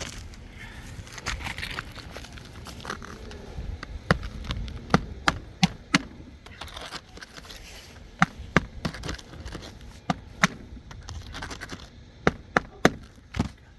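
Nails being driven into a replacement asphalt shingle on a roof: several groups of two to four sharp knocks about a third of a second apart, over light scraping and rustling of the shingles.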